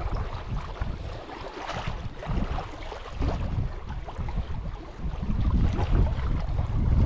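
Wind buffeting the microphone in uneven gusts, over small waves lapping and washing at the water's edge.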